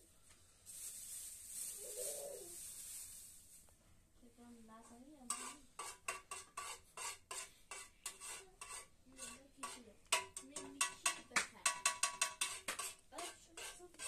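Food frying in oil in a pan on a portable gas burner, sizzling at first, then a metal spoon scraping and knocking against the pan in quick strokes as it is stirred. The strokes come fastest and loudest in the last few seconds.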